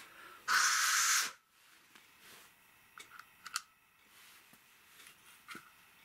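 A short, loud hiss of air about half a second in, then a few light clicks and taps as a small USB desk fan's plug and cable are handled.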